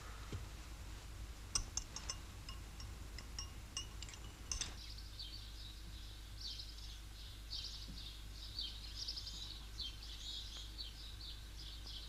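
A few light clinks of crockery, then, from about four and a half seconds in, birds chirping in quick, repeated short calls.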